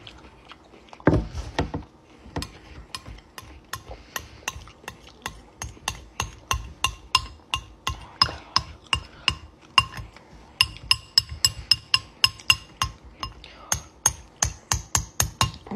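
Metal utensil scraping and tapping against a glass bowl: a quick run of ringing clinks, several a second, as the last of the food is scraped up. There is one heavier low knock about a second in.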